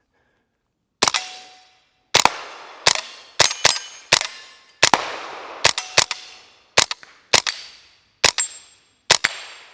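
Tippmann M4 Micro Elite .22 LR semi-automatic AR-style pistol firing standard-velocity rounds. There are about fourteen shots, starting about a second in, at an uneven pace of one to two a second, each with a short echo.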